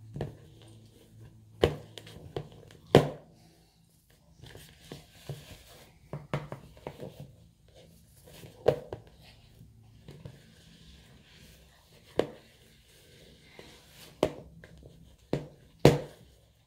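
Wooden spoon stirring thick brownie batter in a plastic mixing bowl: a soft scraping, broken by irregular sharp knocks of the spoon against the bowl.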